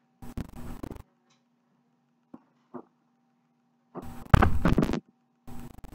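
Handling noises as bottles are picked up: a short rustle, two small clicks around the middle, then a louder rustle or scrape about four seconds in, over a faint steady hum.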